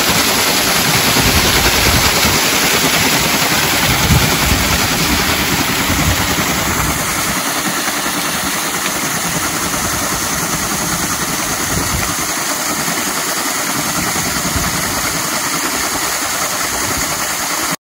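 Heavy stream of water pouring over a metal waterwheel and splashing down its side, a loud steady rush that cuts off suddenly near the end.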